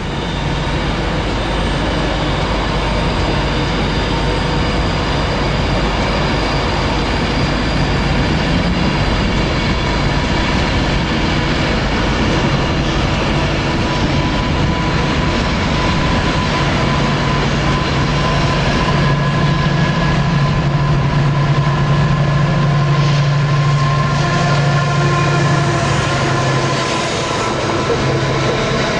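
Diesel freight locomotive running through at speed with a train of box wagons: its engine note grows strongest about two-thirds of the way through as it passes close by, then the wagons roll past with rumbling wheels on the rails.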